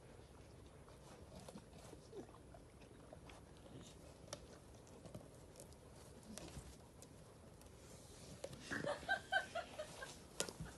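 Dog gnawing on a wooden log: faint, scattered crunches and clicks of teeth on wood. Near the end a louder run of short squeaky notes lasts about two seconds.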